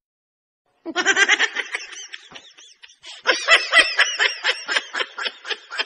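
A child laughing in a long run of quick, high-pitched giggles, starting about a second in after a moment of silence.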